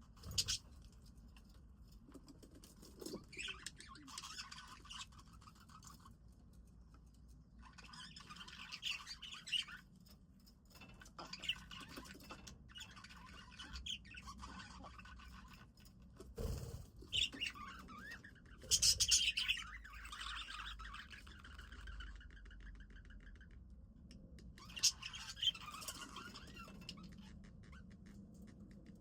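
Budgies chirping and chattering in repeated bouts with short pauses between, and a single low thump about halfway through.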